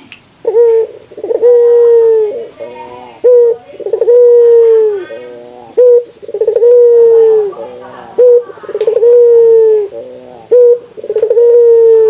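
Puter dove (Barbary dove) cooing loudly and repeatedly. Each phrase is a quick run of short broken notes followed by a long held coo, about every two and a half seconds, starting about half a second in.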